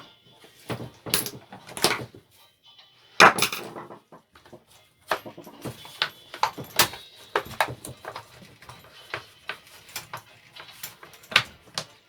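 Irregular knocks, clicks and scrapes of tools and small-engine parts being handled during reassembly, the loudest knock about three seconds in.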